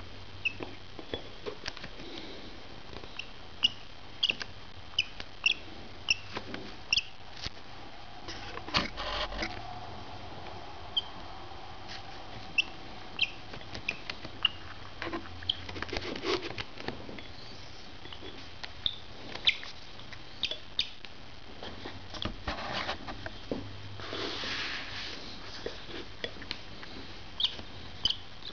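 Peach-faced lovebird giving short, high chirps over and over at an uneven pace, its mealtime calling. A few soft knocks and a brief rustle are mixed in.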